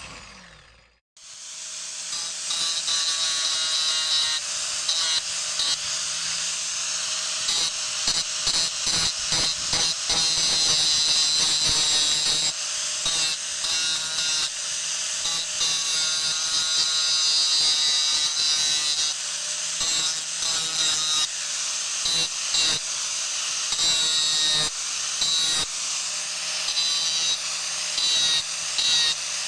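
Electric angle grinder with an abrasive disc grinding the steel of a rusty axe head. It is stopped for the first second, then spins up and runs, its whine changing repeatedly as the disc is pressed onto and eased off the metal.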